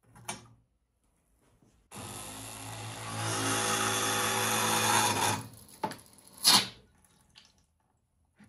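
Small electric diaphragm water pump running for about three and a half seconds, getting louder as it pushes water into a boiler for a hydrostatic pressure test. It cuts off, and two sharp clicks follow about a second later.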